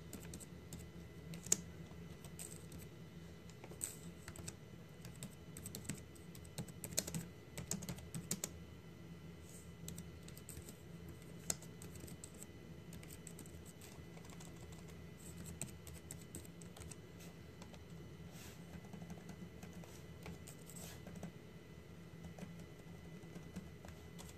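Computer keyboard being typed on: irregular keystrokes in quick clusters, busiest in the first half and sparser later, over a faint steady low hum.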